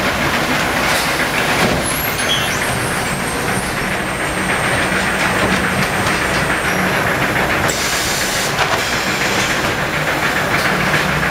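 Automated sack-palletizing machinery running: a steady mechanical din of conveyors and drives with a low hum, and a brief hiss about eight seconds in.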